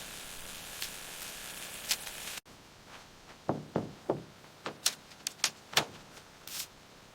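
A steady hiss that cuts off abruptly about two and a half seconds in. It is followed by about a dozen sharp, irregular knocks and taps over the next few seconds, the first few with a dull thud in them, like work on building materials.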